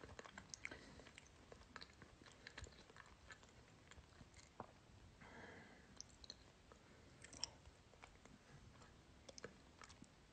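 Near silence, with faint, irregular small clicks and ticks close to the microphone and a brief soft rustle around the middle.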